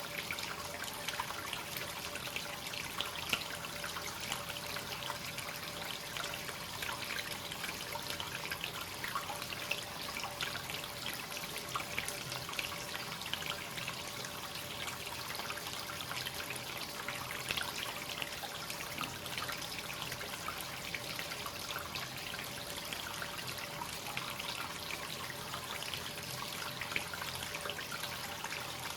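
Free-flowing hot-spring water running into a bath: steady trickling and splashing with many small drips.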